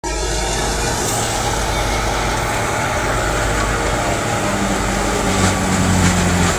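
Heavy farm machine engine running steadily under load, with a constant low hum and mechanical rattle.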